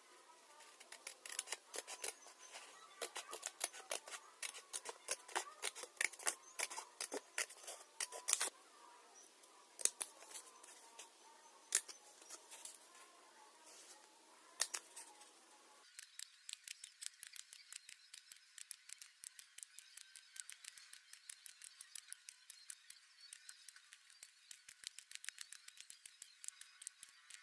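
Scissors cutting thin tin sheet: a long run of irregular sharp snips and clicks, a few much louder than the rest.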